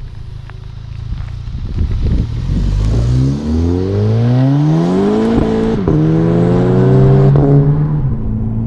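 Modified 2013 Volkswagen Golf GTI (Mk6) with a K04 turbo upgrade and cat-back exhaust pulling away hard. Its turbocharged 2.0-litre four-cylinder rises steeply in pitch, then drops sharply at two quick DSG upshifts, about five and a half and seven and a half seconds in.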